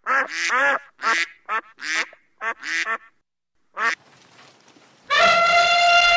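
A domestic goose honking, about seven short calls in the first four seconds. About five seconds in, an elephant starts one long, steady trumpet call.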